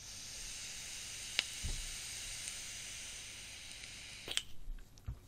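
A pod-style vape being drawn on: a steady sizzling hiss of air pulled through the firing coil for about four seconds. There is a sharp click about a second and a half in and another as the draw ends.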